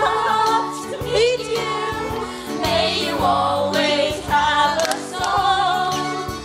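Group of children singing a song in chorus over instrumental backing with a steady beat.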